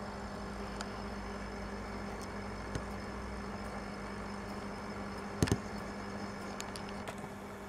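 Steady electric hum of an aquarium air pump running, with two quick knocks close together about five and a half seconds in.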